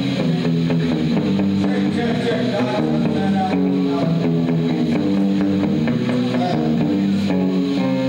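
Electric guitar and bass playing loud sustained notes and chords through the stage amplifiers during a rock band's soundcheck, the notes changing every half second or so.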